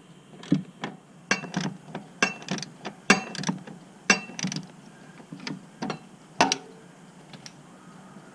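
Socket ratchet clicking in short runs of a few clicks, one run about every second, as it runs a muffler bracket bolt in on a Harley-Davidson.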